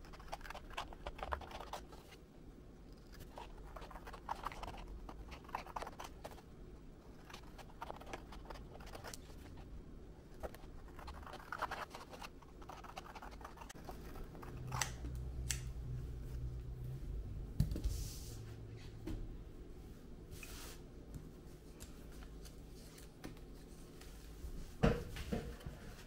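Thick printable vinyl sticker sheet being cut by hand: irregular runs of short, crisp snipping and scratchy cutting strokes, with a few sharper taps, over a low steady hum.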